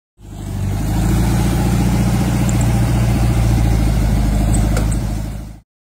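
Volkswagen Beetle's air-cooled flat-four engine idling steadily and evenly, with its carburetor freshly adjusted. It fades in at the start and cuts off abruptly shortly before the end.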